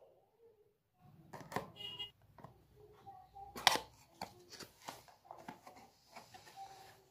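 Cardboard packaging handled and opened: a run of rustles, taps and clicks as the box flaps are pulled apart and the inner tray is slid out, with the sharpest snap about three and a half seconds in.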